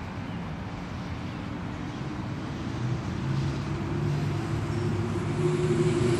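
Crane's engine running, getting louder from about three seconds in with a steady low hum as it revs up.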